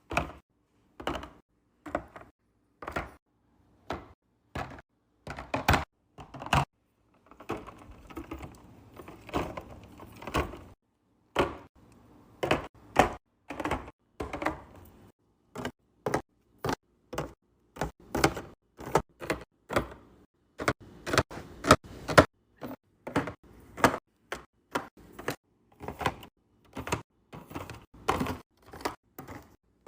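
Drinks and food containers being set down and arranged on fridge shelves: a string of separate knocks and clinks, one or two a second, with some rustling of packaging partway through.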